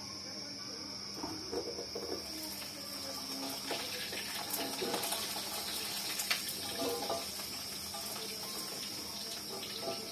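Cassava frying in hot oil in a wok, a steady sizzle, with metal clinks and scrapes of a spatula and wire strainer against the wok that are busiest in the middle.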